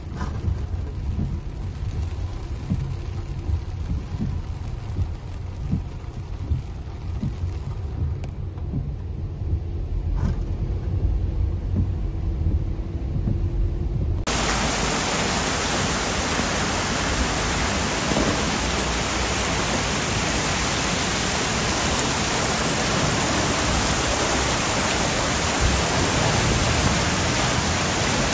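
Heavy thunderstorm rain. For the first half, a low rumble with scattered knocks heard from inside a car driving through the downpour. About halfway through, it cuts to a loud, steady hiss of heavy rain and rainwater running down flooded steps and street.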